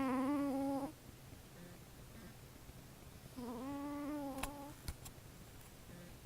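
A cat snoring through a congested nose: two snores about three and a half seconds apart, each a steady pitched note lasting about a second. It is the sound of the cat's nasal issues.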